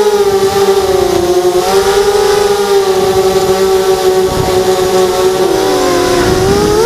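Hexacopter's six electric motors and propellers whining in flight, the pitch wavering with throttle; it sags lower about five and a half seconds in, then climbs back near the end.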